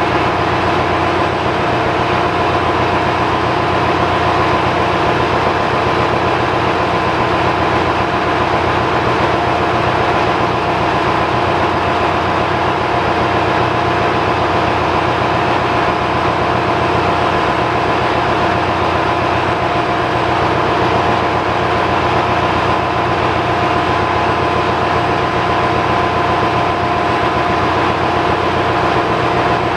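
Ship's engine-room machinery running: a loud, steady drone with a high whine in it, unchanging, from the machinery still in service around the engine that is stripped for overhaul.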